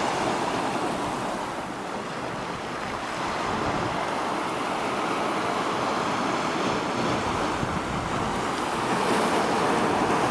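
Sea waves washing against a concrete seawall: a steady rush of surf.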